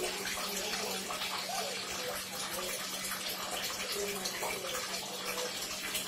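Steady rushing of running water, with a low steady hum underneath.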